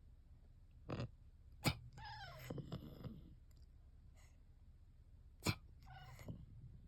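A cat with sinusitis sneezing three times in short, sharp bursts, with brief squeaky cries after the second and third sneezes.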